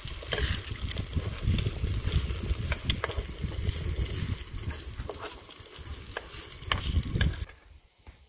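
Eggs sizzling in a skillet on a two-burner camp stove, with a spatula scraping and knocking against the pan as they are stirred. The sound cuts off near the end.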